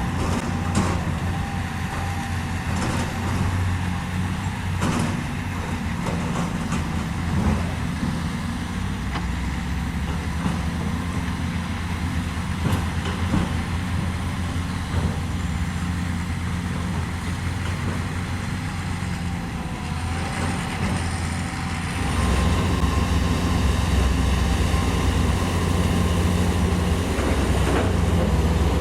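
Diesel engine of heavy earthmoving machinery running steadily, with a few short knocks. The engine gets louder about two-thirds of the way through, as if under more load.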